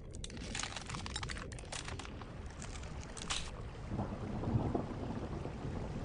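A steady low rumble with dense crackling over the first three seconds or so, then a heavier, deeper rumble.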